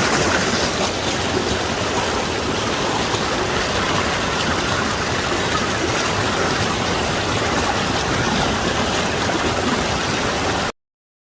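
Mountain valley stream, a steady even rush of flowing water that cuts off abruptly near the end.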